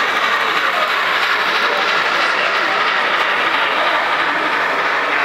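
Model train cars rolling along the layout track: a steady rolling noise of small wheels on the rails.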